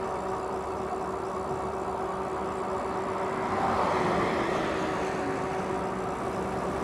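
Riding noise from an OKAI EB50 fat-tyre e-bike on the road: steady tyre and wind noise under a steady hum. A car passes close by about four seconds in, swelling and then fading.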